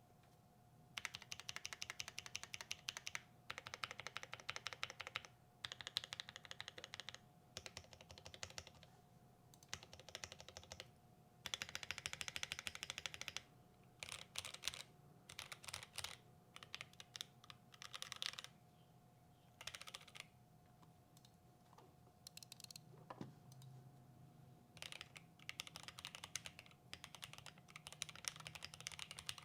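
Fast typing in bursts of a second or two on a custom Glorious GMMK Pro mechanical keyboard with lubed, filmed switches and a polycarbonate plate, each run of rapid keystrokes broken by short pauses.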